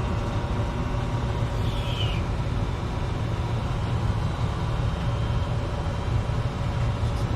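Steady low background hum, with a brief faint falling chirp about two seconds in.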